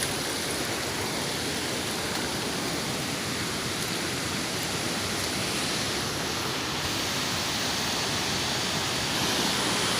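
Seasonal stream waterfall falling in a steady, unbroken rush, with strong wind driving its spray; it grows a little louder near the end.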